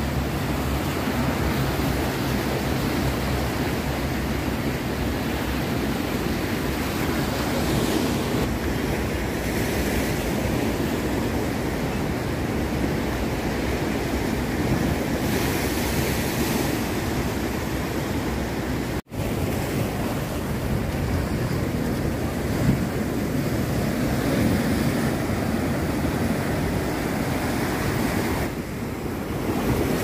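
Sea surf breaking and washing over concrete breakwater blocks: a steady rush of waves. The sound cuts out for an instant about two-thirds of the way through.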